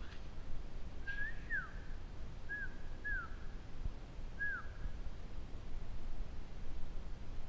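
Four short whistled notes in the first half, each rising briefly then dropping in pitch, each leaving a short echo that hangs in the domed hall.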